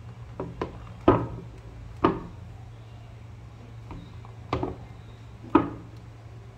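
Leather penny loafers being handled and set down on a wooden tabletop: a series of short knocks, the loudest about a second in, two seconds in and near the end, over a steady low hum.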